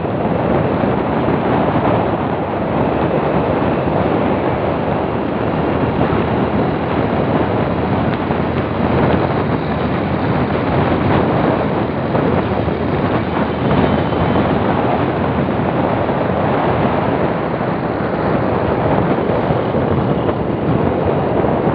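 Steady, loud rush of wind buffeting the microphone of a phone filming from a moving vehicle, mixed with the vehicle's travel noise.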